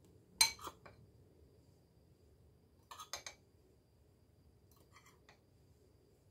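A metal spoon clinks against a bowl while flour is spooned into a ceramic mixing bowl. There is a quick cluster of clinks about half a second in, another about three seconds in and fainter taps around five seconds.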